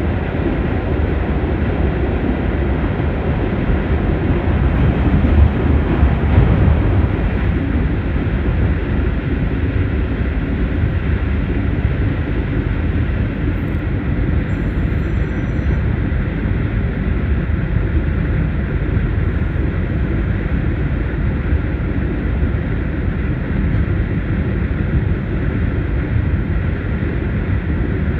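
Fertagus electric commuter train running at speed, heard from inside the carriage: a steady rumble of wheels on rails, swelling briefly about five to seven seconds in.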